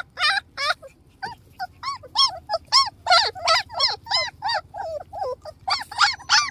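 Several puppies whimpering and yelping over and over in short, high, arching cries, some overlapping, with a brief pause about a second in.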